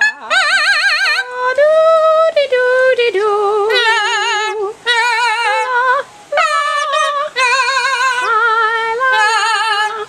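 Yellow-naped amazon parrot singing opera-style, a run of drawn-out "la" notes with a wide, fast vibrato, one phrase after another with short breaks between.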